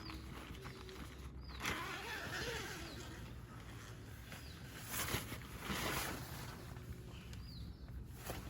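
Quiet outdoor ambience with faint, brief high chirps that fall in pitch, scattered through, and a few soft rustling swells of noise about half a second long, one near two seconds in and two around five to six seconds in.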